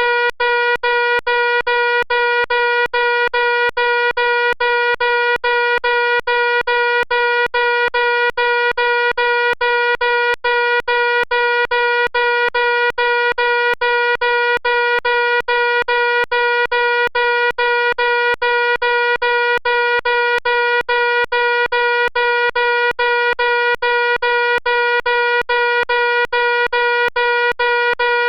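Fire alarm sounding: a loud, steady, buzzy electronic tone, broken by very short gaps several times a second.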